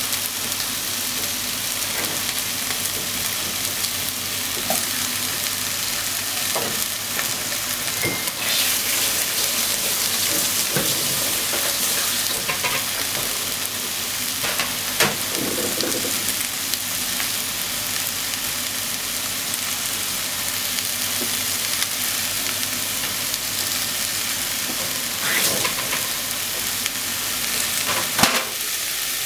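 Potato, carrot and onion chunks sizzling steadily in oil in a pot as they are sautéed for curry, with a few clicks and scrapes of stirring, the sharpest near the end.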